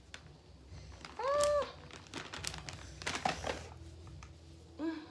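Rustling and crinkling handling noises with scattered clicks, broken about a second in by a short, high-pitched vocal-like sound and by another brief one near the end.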